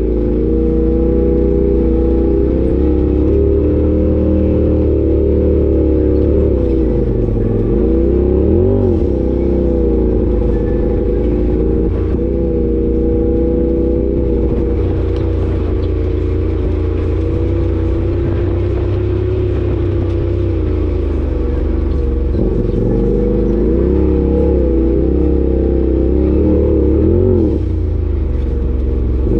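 Side-by-side UTV engine running steadily on a dirt trail, its pitch rising and falling as the throttle is worked, about eight seconds in and again near the end.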